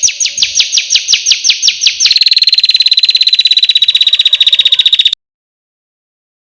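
Kecial kombok (cucak kombok) song: a run of sharp, high notes about six a second, breaking about two seconds in into a much faster, even, buzzing trill for about three seconds. The trill cuts off suddenly into dead silence, as in a looped training recording.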